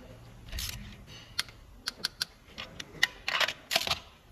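Torque wrench ratcheting in short raspy bursts with sharp, irregular clicks as a spark plug is tightened down to its 23 newton-metre setting.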